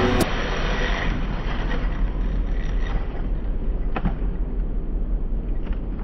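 A Traxxas UDR radio-controlled truck running across grass, heard as a steady, dull rushing noise with a low rumble. There are faint clicks about four seconds in and again near the end.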